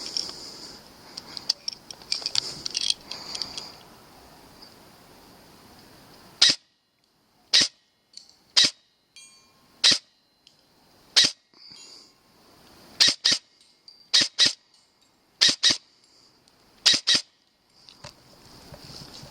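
Airsoft gun firing single shots, about thirteen sharp cracks: first one at a time about a second apart, then in quick pairs. Rustling handling noise comes before the shooting starts.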